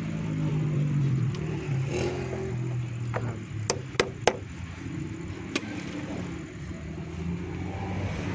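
A car engine idling steadily, rising slightly in speed once early on, with four sharp metallic clicks around the middle.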